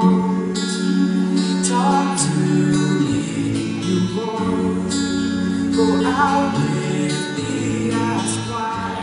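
Men's vocal group singing held harmony chords, with a low bass part changing notes underneath.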